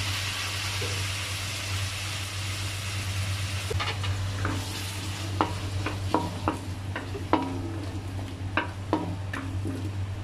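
Diced carrots, potatoes and bell peppers sizzling in oil and soy sauce in a stainless steel pan. From about four seconds in, a wooden spatula stirs them, with irregular sharp knocks and scrapes against the pan over the sizzle.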